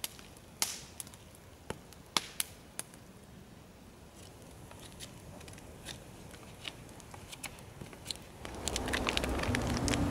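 Wood campfire crackling, with sharp pops at irregular intervals. Near the end the sound grows louder and music with a low, steady bass comes in.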